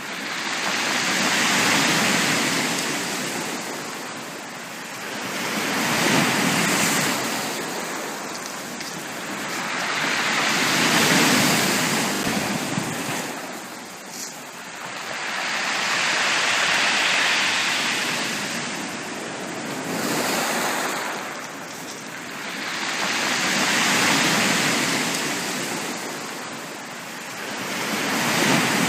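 Ocean waves breaking on a beach: the surf swells and washes back in slow surges every few seconds, about six in all.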